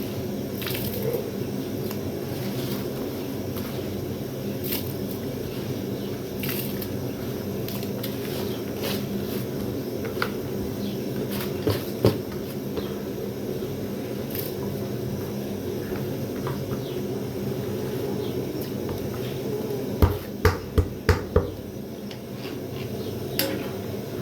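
Water being poured and measured into a cooking pot for the rice, a steady wet pouring and sloshing, with about five sharp knocks of metal kitchenware near the end.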